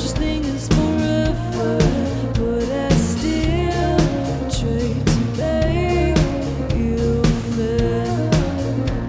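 Band playing live: drum kit keeping a steady beat under guitar and bass, with a singing voice over the top.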